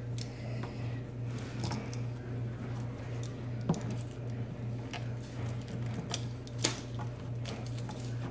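Small irregular clicks, scratches and plastic crinkles of a utility knife and fingers trimming and picking the trash-bag lining away from the hardened paper clay around the pumpkin's teeth.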